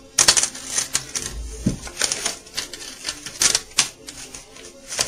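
Irregular sharp clicks and taps of metal banjo hooks and nuts knocking against the rim hardware and tension hoop as they are handled and fitted.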